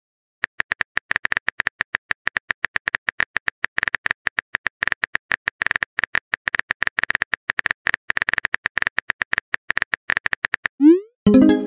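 Simulated phone-keyboard typing sound effect: a long, rapid, even run of short clicks. Near the end comes a quick rising whoosh and a short chime, the sound of the message being sent.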